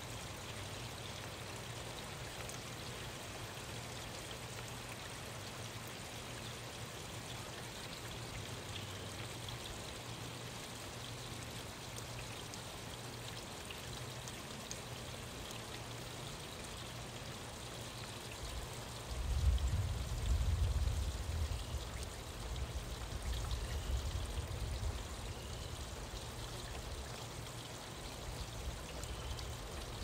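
Steady rain falling. About two-thirds of the way in, a low rumble of thunder sets in and is the loudest sound, swelling and fading to the end.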